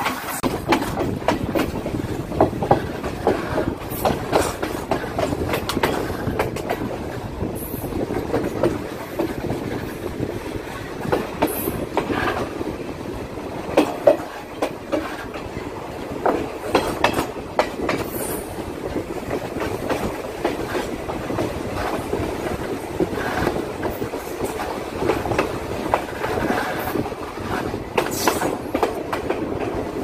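Passenger train running on its rails, heard from an open carriage window: a steady rumble with the clickety-clack of the wheels over rail joints, and a few brief high wheel squeals.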